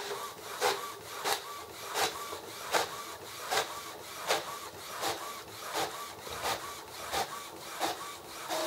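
Epson XP-605 inkjet printer printing: the print head carriage shuttles back and forth across the page with the scanner unit raised. It makes a steady, even rhythm of clicks at the carriage passes, about three every two seconds, with a short whir between them.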